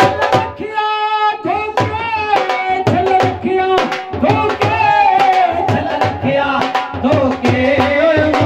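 Dhol drum beaten with a thick stick and a thin cane in a fast, loud rhythm, under a man singing long held notes through a microphone and loudspeaker. The drumming stops for a moment about a second in while the voice holds a note, then starts again.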